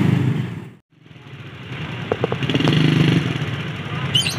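Road vehicle noise with motorcycle engines running. The sound fades out to nothing just under a second in, then builds back up over the next two seconds.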